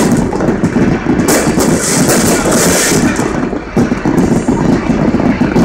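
Aerial fireworks going off in a dense, continuous barrage of overlapping booms and crackles, with no break between bursts.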